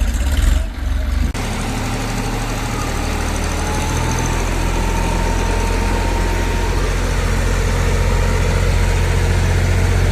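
Heavy diesel engine running steadily at an even low pitch. The sound changes abruptly about a second in, and a faint thin whine holds through the middle.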